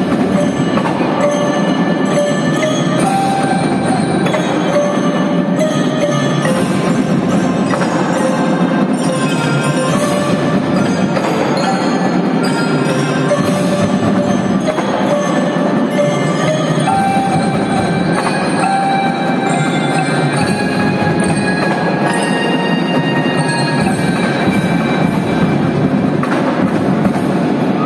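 Marching band playing a full-ensemble passage. Brass and drums run under the ringing notes of the front ensemble's marimbas and xylophones.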